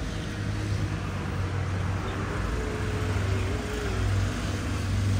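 Road traffic noise: a steady low engine hum under an even wash of street noise, with a faint wavering tone for about two seconds midway.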